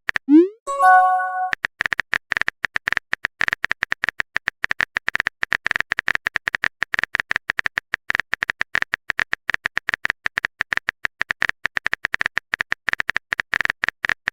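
Smartphone keyboard typing sound effect: rapid, irregular key clicks running on for many seconds. At the very start there is a short rising pop followed by a brief chime of a few steady tones, a message-notification sound.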